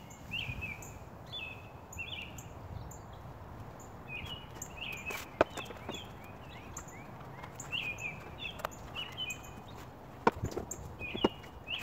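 Small birds chirping, many short high chirps in quick runs, over a low steady background hum. A few sharp taps and clicks stand out, the loudest about five and ten seconds in.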